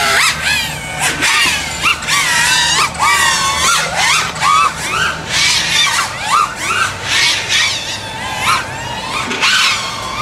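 FPV racing quad's brushless motors whining in flight, the pitch sweeping sharply up and down again and again as the throttle is punched and chopped.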